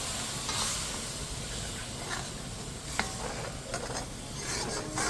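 Curry seasoning sizzling in a hot pot as it is stirred, with the hot water just added to make the sauce. A spoon knocks sharply against the pot about three seconds in.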